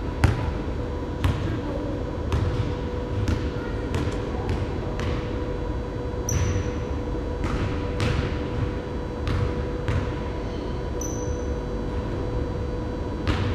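Basketball bouncing on a hardwood gym floor as it is dribbled, an uneven knock about once a second, each echoing briefly in the large hall. A steady hum runs underneath, with two brief high squeaks.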